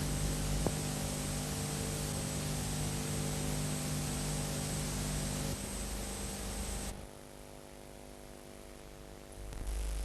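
Steady hiss with a low mains hum, the background noise of an old archival soundtrack, with no music in it. It drops much quieter for about three seconds near the end, then comes back.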